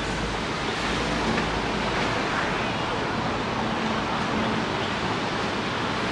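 Steady rushing outdoor ambience of distant surf and wind, with faint far-off voices now and then.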